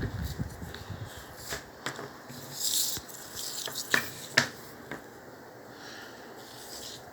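A handful of separate sharp clicks and knocks, about five over a few seconds, with a short hiss near the middle. A low rumble fades out near the start.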